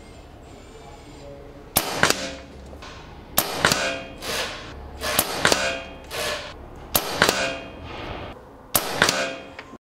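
Five shots from an Umarex Komplete .22 nitrogen-powered regulated PCP air rifle, about one every second and a half to two seconds. Each is a sharp crack with a second strike just behind it and a ringing tail.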